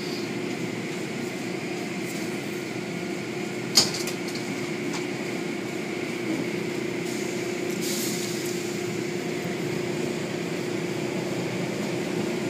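Automatic tunnel car wash running: a steady hum of its machinery under the hiss of spraying water as cloth curtains and brushes work over a soaped vehicle, with one sharp knock about four seconds in.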